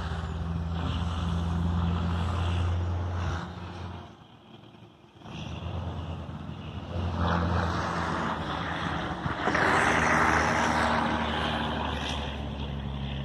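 Road traffic passing: a vehicle's steady engine hum that dies away about four seconds in, then engine and tyre noise from more passing vehicles, building to its loudest about ten seconds in.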